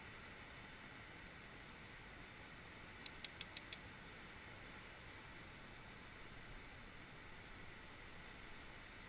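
Faint steady hiss, close to silence, broken about three seconds in by a quick run of five sharp ticks in under a second.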